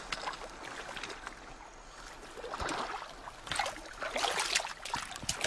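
Water splashing and dripping, with irregular light knocks; the splashing grows busier and louder in the second half.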